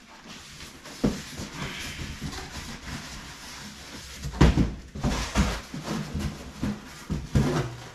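Cardboard packaging and plastic bag wrapping rustling and scraping as a boxed metal chop saw is pulled out and handled. Several knocks and thumps come through, the loudest about four and a half seconds in.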